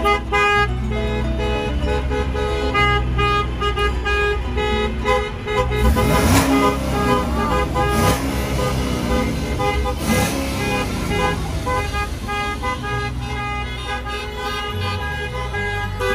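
Many car horns honking in slow, crowded traffic, their held tones overlapping and starting and stopping throughout. Three louder, noisier blasts with sliding pitch come around the middle.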